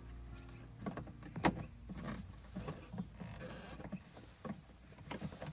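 Scattered clicks and knocks of a plastic car door trim panel being handled and pushed back into place, with one sharper click about a second and a half in.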